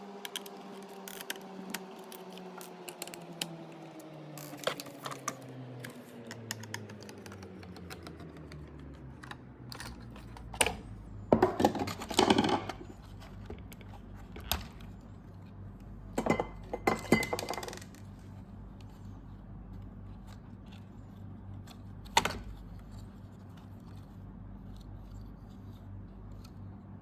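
Clicks, taps and rattles of a Roborock robot vacuum's plastic LiDAR turret and housing being handled and turned by hand, with two louder spells of handling noise partway through. At the start a low hum slides down in pitch and fades over several seconds.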